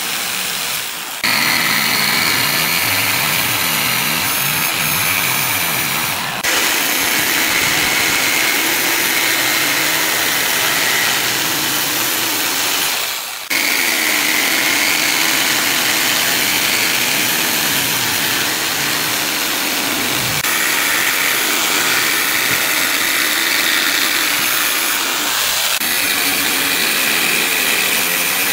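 Corded electric jigsaw running steadily as it saws through a wooden board along a curved line. It stops and restarts briefly a few times, about a second in, around six and thirteen seconds in, and near the end.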